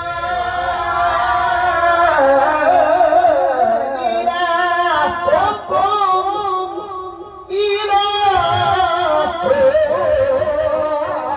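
A male qari reciting the Qur'an in the melodic tilawah style through a microphone and loudspeaker. He holds long, high, ornamented phrases that waver and glide in pitch, with a short break for breath about seven seconds in before he carries on.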